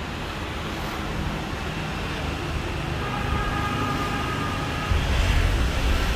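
Outdoor city ambience: a steady rumble of distant traffic. A faint held tone sounds for about two seconds in the middle, and the low rumble grows louder about five seconds in.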